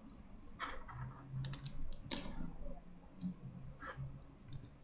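A few quiet, scattered clicks of a computer keyboard and mouse as shortcuts are pressed, over a faint high-pitched whine that rises and falls.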